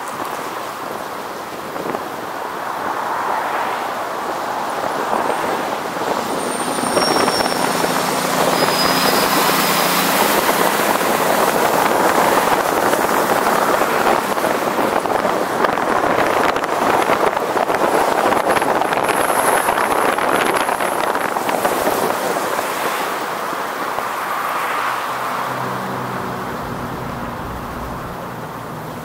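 Road noise from a vehicle driving through city streets: tyre and wind rush that builds over about ten seconds, holds, then eases off near the end, with a few faint high squeals.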